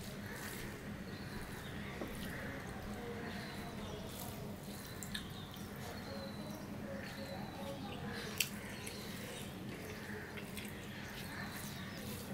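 Wet chewing and lip-smacking while eating rice and curry by hand, mixed with the soft squish of fingers kneading rice on a steel plate. A sharp click stands out about eight seconds in.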